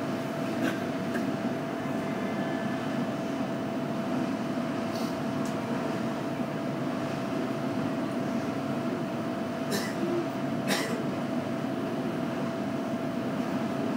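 JR Kyushu 815 series electric train standing with its doors open: a steady hum of onboard equipment with one constant tone running through it. A few short clicks sound over it, the two loudest about ten and eleven seconds in.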